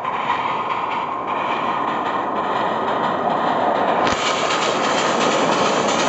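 A 7¼-inch gauge American-style miniature steam locomotive running along the track, heard from the driving position: a steady, dense rush of running noise from the engine and its wheels on the rails, growing slightly louder.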